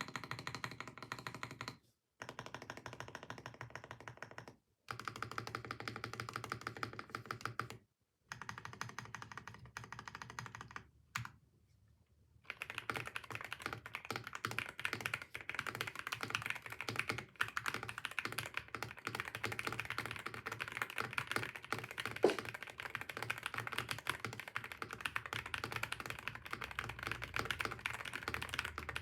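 Sugar65 mechanical keyboard being typed on: rapid key-press clacks in a few short takes broken by brief silent cuts, then continuous fast typing from about twelve seconds in.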